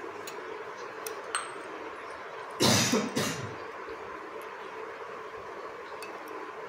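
A young child coughs twice in quick succession about two and a half seconds in, the first cough louder. A couple of faint clicks come about a second before.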